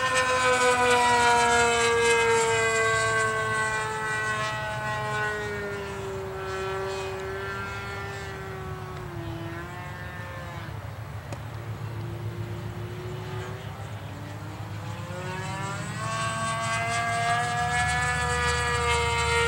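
Radio-controlled model airplane's motor and propeller droning as it flies overhead. The pitch slowly falls and the sound fades through the middle. Near the end the pitch rises and it grows louder again.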